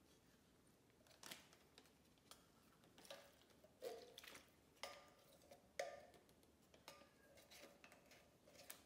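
Quiet, scattered clicks and knocks of kitchen utensils and containers being handled while a marinade is made, a few with a short ring after the hit.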